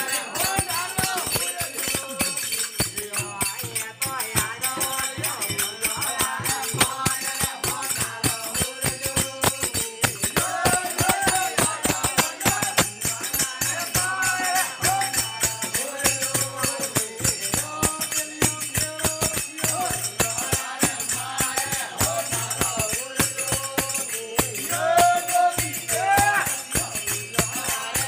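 Folk devotional bhajan: a man sings over the steady low drone of a desi veena (tandura), with a fast jingling percussion rhythm.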